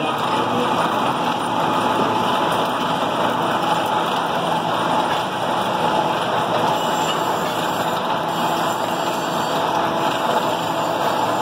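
Workshop machine running with a steady, continuous mechanical noise, unchanging throughout.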